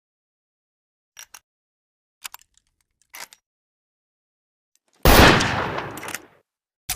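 Handgun sound effect: a few short clicks, then one loud shot about five seconds in whose tail dies away over about a second, and another sharp click just before the end.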